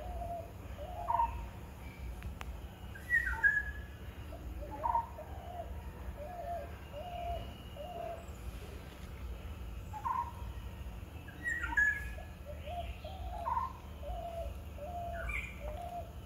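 Birds calling: short, low hooting notes repeated in runs of four or five, with higher, sharper calls now and then, over a steady low rumble.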